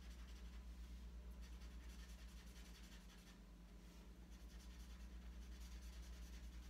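Faint strokes of a marker colouring in on paper, coming in short scratchy runs over a steady low hum.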